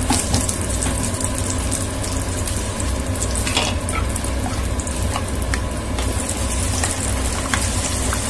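Butter and cumin seeds sizzling steadily in a hot frying pan, with occasional small crackles, over a steady low hum.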